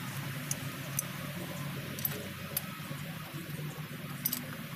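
A few sharp, irregular metal clicks and ticks from hand tools and parts being handled on a truck's diesel engine, with a quick double click near the end, over a steady low hum.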